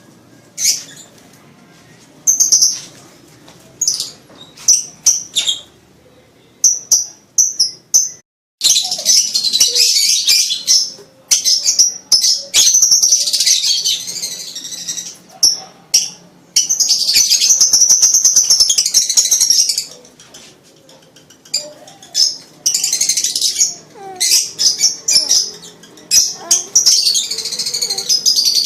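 Lovebird in breeding condition, chattering. It starts with short, separate high chirps and then breaks into long runs of rapid, high-pitched chatter lasting several seconds each. This is the kind of mating-season call that is played as a lure to rouse male lovebirds.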